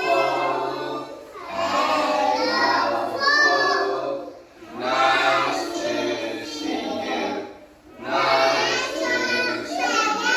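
A class of young children singing a hello song together over backing music, in phrases with short breaks between them.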